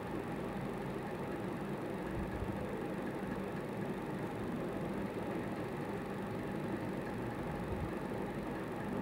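Black domestic straight-stitch sewing machine running steadily as it stitches down a folded fabric edge.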